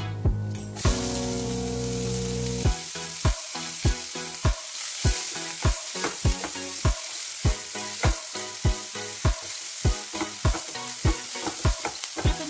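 Chopped red onions sizzling in hot oil in a non-stick kadai, the sizzle starting suddenly about a second in as they hit the pan, and stirred with a spatula as they fry toward translucent. Background music with a steady beat runs underneath.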